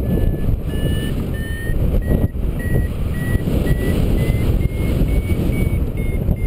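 Paragliding variometer beeping its climb tone: short beeps about twice a second whose pitch rises slowly and then eases slightly, a sign that the glider is climbing in lift. Heavy wind noise on the microphone runs underneath.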